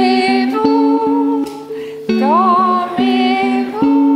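Electric guitar playing a slow melody of long held notes, with one note bent up in pitch about two seconds in.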